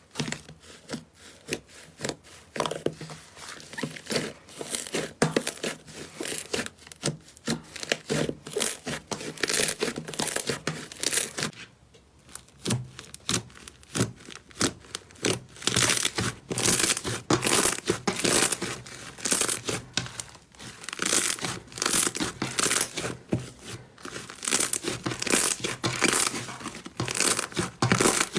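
Slime being squeezed and pressed by hand, giving a dense run of sharp crackles and pops. A short pause comes about twelve seconds in.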